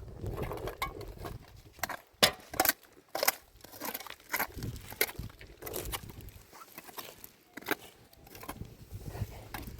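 Irregular clicks, taps and rustles of objects being handled, uneven in timing and loudness, with a low rumble underneath.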